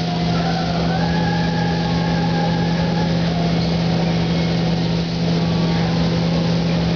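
Steady hum and rushing air of a spray booth's ventilation fans, mixed with the hiss of a spray gun laying down clear coat.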